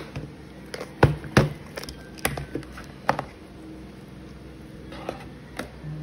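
Hard plastic cases and small repair tools clacking and knocking as they are handled and set down, with a few separate sharp knocks; the loudest come about a second in.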